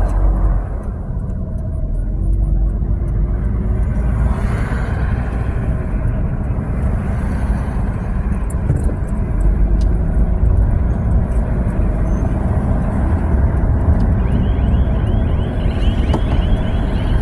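Steady low rumble of road and engine noise heard from inside a moving car, with a faint engine tone rising in pitch a few times as the traffic accelerates.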